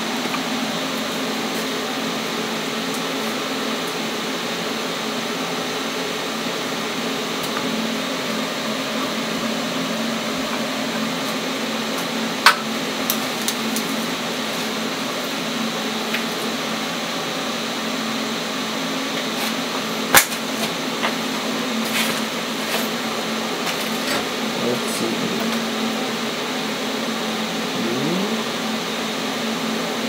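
Steady hum of a small motor or fan, with a few sharp clicks and knocks from tools being handled.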